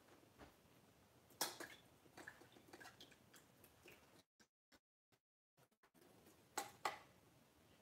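Near silence broken by soft clicks and taps of painting: a brush and paint being worked, with a sharper tap about one and a half seconds in and two more near the end. The sound cuts out completely for a moment in the middle.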